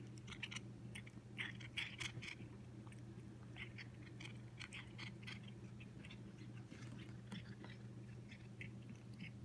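Cat chewing and crunching treats: irregular crisp crunches, busiest in the first couple of seconds, over a steady low hum.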